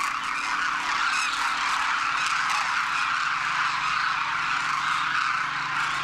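Dense chorus of a large flock of demoiselle cranes calling all at once, their many overlapping calls merging into a steady, unbroken din.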